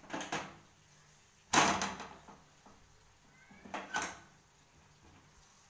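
A few sharp knocks and clatters of kitchen handling at the griddle: a small knock at the start, a loud knock about a second and a half in that dies away over about half a second, and another knock near four seconds. No sizzling is heard.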